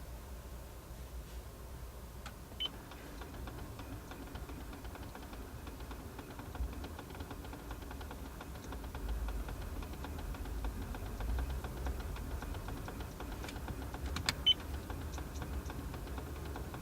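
Fast, faint ticking from the air-conditioning switching (damper) motor of a 17-series Toyota Crown, which the owner takes for the source of the car's abnormal noise, over a low steady hum in the cabin. A couple of sharper clicks come near the end.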